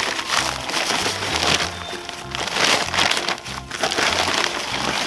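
Background music with a repeating bass line, over the irregular hiss and crinkle of dry quick-set concrete mix pouring from a paper bag into a post hole.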